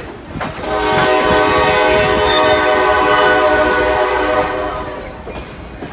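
Locomotive air horn sounding one long, steady blast of about four seconds, a chord of several notes, over a low rumble.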